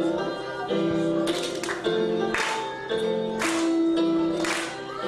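A school choir singing held notes with instrumental accompaniment, the pitch stepping from note to note. From about a second in, a short hissing accent comes roughly once a second.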